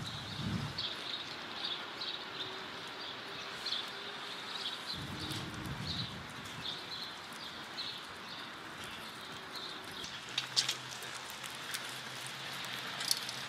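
Street ambience with a small bird chirping over and over, short high chirps a couple of times a second, over a faint steady hiss; the chirping fades out after about ten seconds, and a few sharp clicks come near the end.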